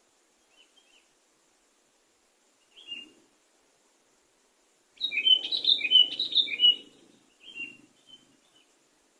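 Sooty-headed bulbul singing. A few short notes come first, then a loud burst of quick, jumpy chirping phrases about five seconds in that lasts around two seconds, and a few softer trailing notes follow.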